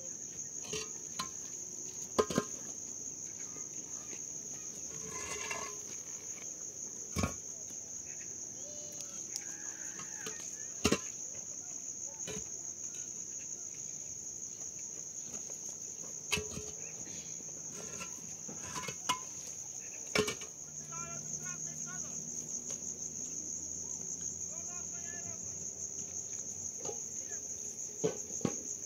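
Crickets trilling steadily on one high pitch, with a handful of sharp knocks now and then.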